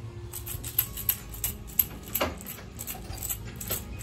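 Small loose objects rattling and clicking inside a small jar with a green lid as it is shaken by hand, in quick irregular clicks, with a brief falling squeak about halfway through.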